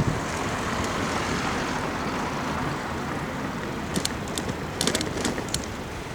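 Car driving along a city street: steady road and engine noise, with a few sharp clicks between about four and five and a half seconds in.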